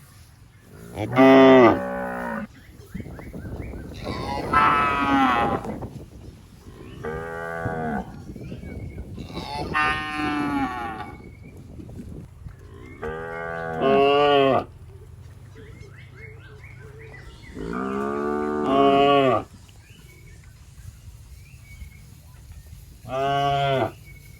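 Cattle mooing: about seven long, pitched moos spaced a few seconds apart, each lasting one to two seconds.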